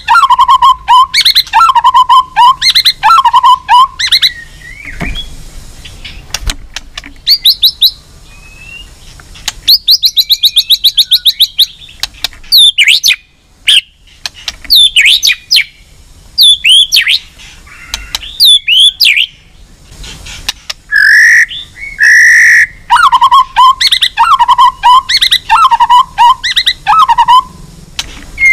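White-rumped shama singing loudly: dense bursts of repeated whistled phrases near the start and again in the last quarter, a fast even trill about ten seconds in, and scattered clear whistles between.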